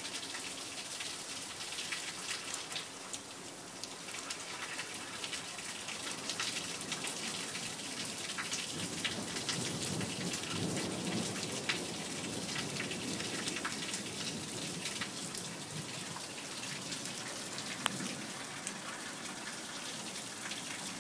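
Steady rain falling, with many sharp drop clicks close by. Around the middle a low rumble of thunder rolls for several seconds, and a shorter rumble follows near the end.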